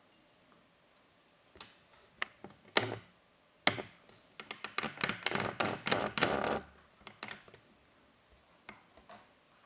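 British Shorthair kittens batting at a wand toy on a cat tree: scattered light taps and knocks, with a quick flurry of them around the middle.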